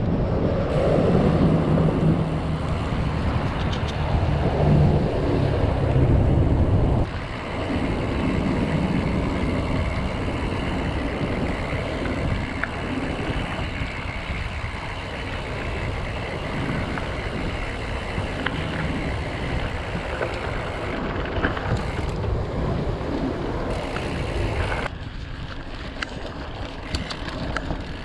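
Wind noise on the action camera's microphone during a mountain-bike ride, with the tyres rolling, first on pavement and then, from about seven seconds in, on a dirt trail. Occasional light ticks and rattles come through.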